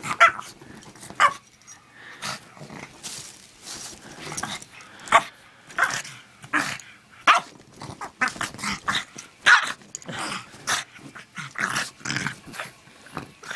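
Pug growling and giving short barks in excited play while mouthing a gloved hand, in many short, irregular bursts.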